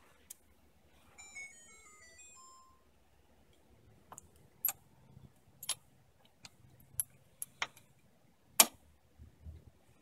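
Sharp metallic taps, about nine over five seconds and the loudest near the end: a greased brake-pad retaining pin being tapped into a Brembo caliper until it seats. About a second in, a short run of high beeping tones steps down in pitch.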